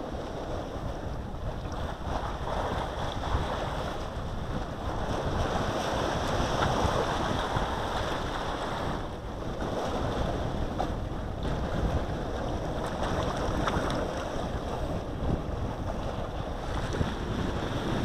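Wind buffeting the microphone over the wash of sea waves, swelling and easing in gusts.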